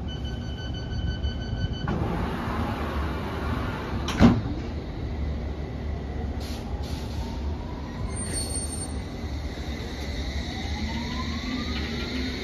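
London Underground S7 Stock train: a steady door-closing warning tone sounds for about two seconds, then the sliding doors shut with a loud thud about four seconds in. From about six seconds the traction motors whine, rising in pitch as the train pulls away, over a steady low rumble.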